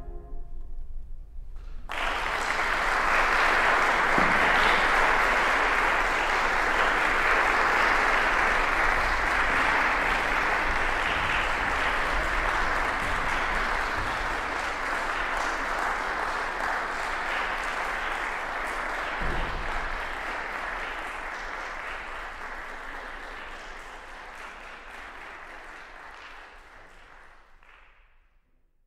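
The final bassoon-and-piano note dies away, then audience applause begins about two seconds in, holds steady for a while, and slowly fades out near the end.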